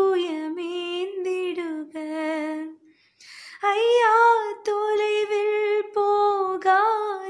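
A young woman singing a Tamil Christian devotional song unaccompanied, holding long, slightly wavering notes, with a short pause and intake of breath about three seconds in.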